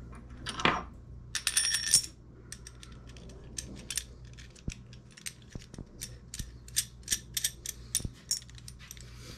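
Hand socket ratchet clicking at about three clicks a second, backing off the nut of a clutch compression tool to release it from the secondary clutch. A couple of ringing metal clanks come in the first two seconds.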